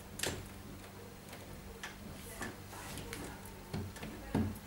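A handful of sharp plastic clicks and light knocks as a plastic part is pushed onto its clips at the top of an LG washing machine's drum opening, the clips snapping into place. The loudest click comes just after the start and another near the end.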